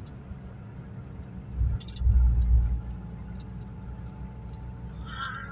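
Ford Fiesta Mk2 XR2's carburetted 1.6-litre four-cylinder engine running while cruising, heard from inside the car along with tyre noise on wet tarmac. A louder low rumble swells for about a second around two seconds in.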